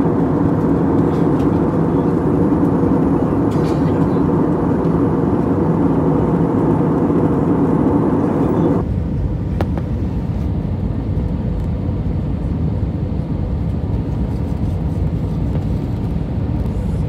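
Steady cabin noise inside an Airbus airliner in flight: engine and airflow noise as a constant rush. About nine seconds in it changes suddenly to a duller, lower rumble as the higher part of the noise drops away.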